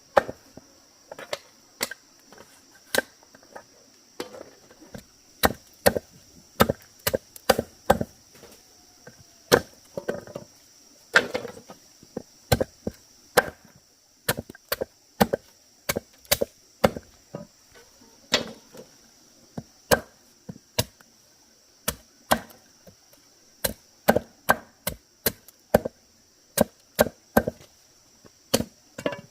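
Bamboo being chopped with a blade: repeated sharp wooden strikes, irregular at about one or two a second, some in quick pairs. A steady high insect drone runs behind them.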